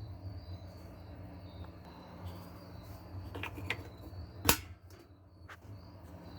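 A few short metal clicks from the washer's parts and tools being handled during the tub hub repair, with one sharp, loud click about four and a half seconds in. A low hum and a faint, steady high whine run underneath.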